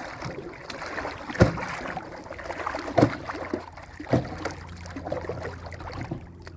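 Handling noises aboard a small boat on the water: a few sharp knocks against the hull over a low wash of water and wind.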